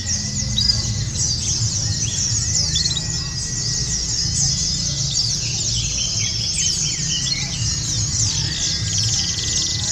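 A chorus of many white-eyes (pleci) singing at once: dense, fast, high-pitched chirps and trills overlapping without pause, as at a pleci song contest. A low murmur runs underneath.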